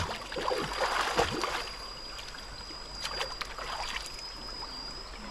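Shallow muddy stream water sloshing and splashing around a person wading and working in it, loudest in the first second or so, over the steady run of the stream. A thin, steady high tone runs underneath, with a few sharp clicks about three seconds in.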